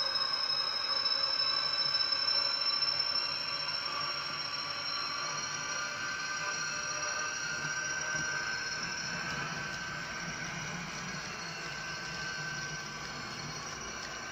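Model electric locomotive of a ZSSK class 381 running past with its train, giving a steady high whine made of several held tones that creep slowly upward in pitch, over a low rumble of the wheels on the track. The sound eases off slightly after about three seconds as the locomotive moves on.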